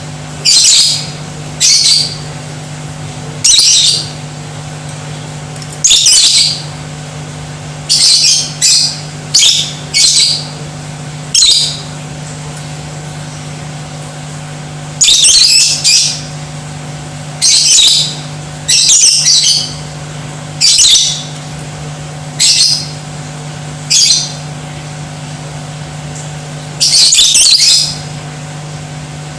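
Lovebird giving loud, shrill squawking calls in short bursts, mostly one every second or two, with a pause of a few seconds in the middle. A steady low hum runs underneath.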